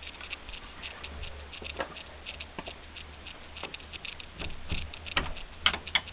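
Light handling and movement noise: scattered soft taps and clicks, with a few sharper clicks near the end.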